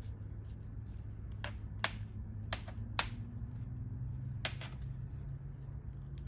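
Five or so sharp plastic clicks spread over a few seconds as an MC4 solar connector is screwed together by hand, over a steady low hum.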